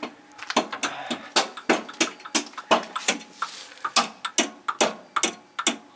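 Light, sharp metallic taps, about three a second in an even run, as the nut-retaining bracket on a car's suspension control arm is struck and bent over.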